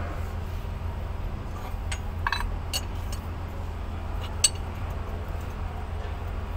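Metal hand tools clinking against the fuel-line fittings of a diesel engine: a few short, sharp clinks, the loudest about four and a half seconds in, over a steady low hum.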